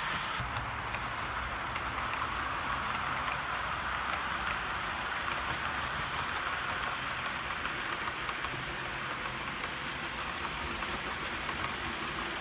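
Model railway trains running on the layout: a steady rushing noise of wheels on the rails, with a low motor hum that starts about half a second in.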